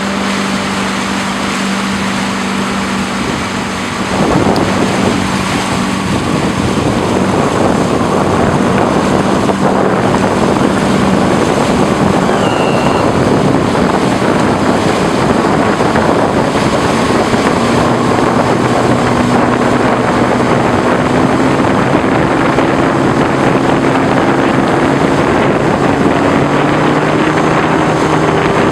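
Motorboat engine running under heavy wind and water rush on the microphone, which gets louder about four seconds in. Later the engine's pitch climbs slowly as the boat speeds up.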